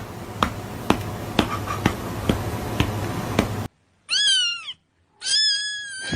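A cat meowing twice: a short meow that rises and falls, then a longer, drawn-out meow at a steady pitch. Before the meows there is a steady hiss with a regular click about twice a second, which cuts off suddenly.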